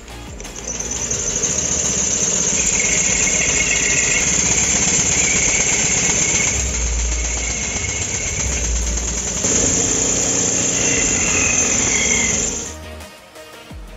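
Small toothed circular saw blade, belt-driven by a model steam engine, cutting through a wooden stick with a loud, high rasp. The cutting starts about half a second in, eases a little midway, picks up again and stops sharply shortly before the end.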